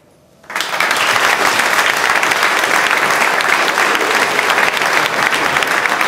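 Audience applause, many people clapping, starting suddenly about half a second in and holding steady.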